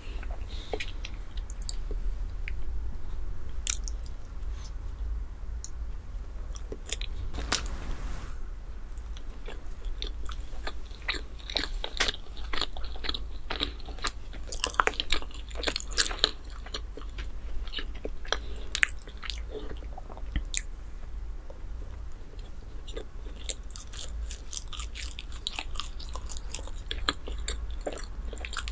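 Close-miked chewing and biting of a chocolate-glazed chocolate bread, with many small sharp clicks that are thickest in the middle stretch. A steady low hum runs underneath.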